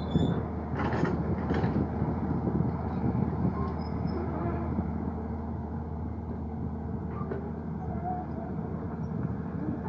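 Komatsu PC200-7 excavator's six-cylinder diesel engine running steadily as the machine moves on its tracks, with a couple of short knocks about a second in.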